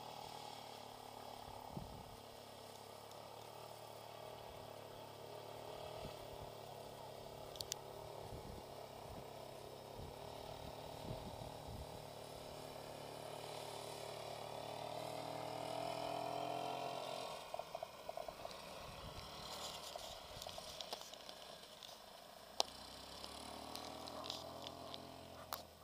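An engine running steadily, its pitch rising a little past halfway and then dropping away, followed by a few scattered sharp clicks near the end.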